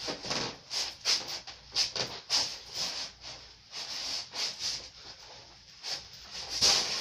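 All-leather shoes scuffing and sliding on a wooden floor in quick, irregular swishes, quieter for a couple of seconds past the middle.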